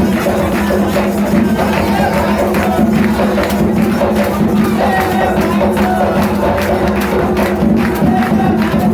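Music with a busy percussion beat of frequent hand-percussion strokes and jingles, over a steady low tone, with voices.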